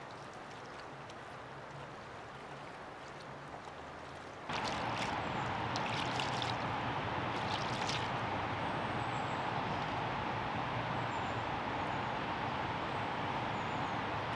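Running water of a stream: a steady rushing that jumps much louder about four and a half seconds in, with a few brief sharper sounds soon after.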